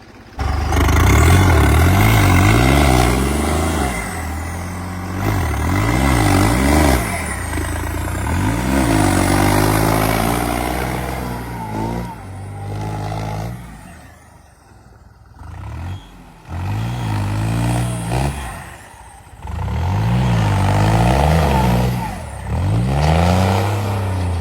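New Holland 3630 tractor's diesel engine revving hard in repeated surges, rising and falling every couple of seconds as it labours through deep mud. The engine drops back briefly about 14 and 19 seconds in.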